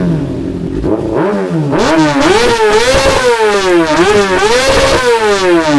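Kawasaki ZX-6R 636 inline-four sport bike with an Arrow titanium race exhaust, revving loudly, its pitch climbing and dropping several times in a row.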